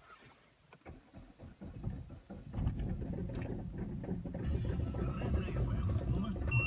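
Peugeot 407's 1.6 HDi four-cylinder turbo-diesel cold-started at −14 °C, heard from inside the cabin: irregular clicks while it cranks, then it catches about two and a half seconds in and keeps running steadily. A short high beep sounds near the end.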